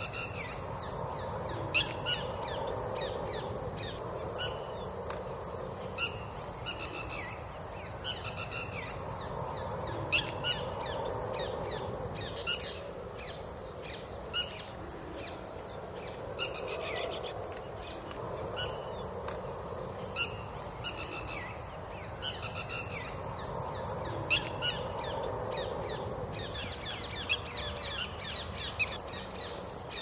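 Steady high-pitched drone of insects in a field, with short bird chirps repeating every second or two over it.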